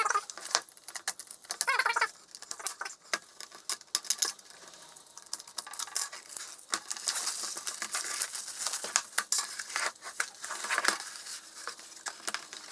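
A marble run kit's box being opened and unpacked: crinkling, rustling packaging and many small knocks and clicks as the contents are handled.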